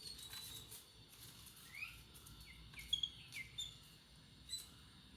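Jungle babblers calling: a scattering of short, sharp chirps that slide upward, several in quick succession in the middle and one more near the end.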